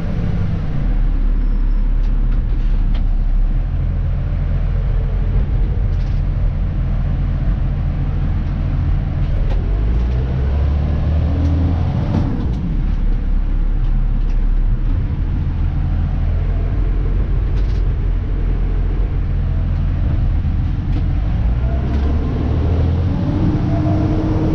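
Dennis Elite 2 refuse truck's diesel engine running steadily as the truck drives, heard from inside the cab, its low note shifting in pitch a few times. A few light clicks and rattles sound over it.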